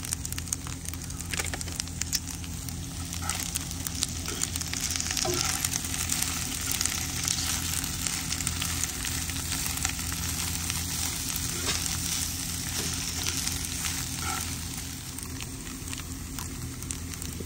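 Food frying and sizzling in a pan, with many small crackles over a steady low hum.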